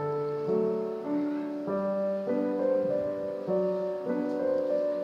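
Background piano music: a slow melody of held notes that change pitch about every half second to second.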